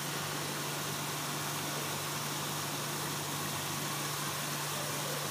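Masala frying in oil in an aluminium karahi over a high gas flame: a steady, even hiss of gentle sizzling over a constant low hum.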